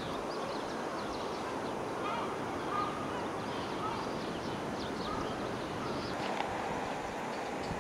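Birds calling and chirping over a steady background noise, with short higher calls scattered throughout.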